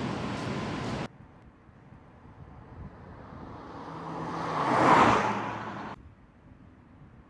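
Steady factory-hall noise that cuts off abruptly about a second in, followed by a car passing by: it swells to a peak about five seconds in, drops in pitch as it goes past, and cuts off suddenly about a second later.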